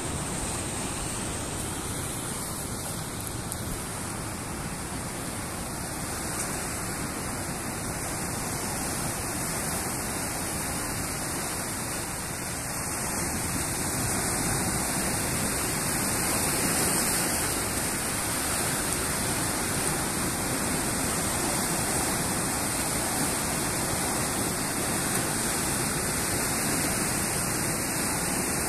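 Ocean surf breaking over a rocky shore: a dense, steady wash of noise that grows a little louder about halfway through.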